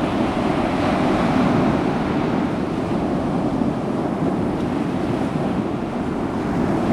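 Ocean surf: waves washing and breaking on a shore, a steady rushing wash.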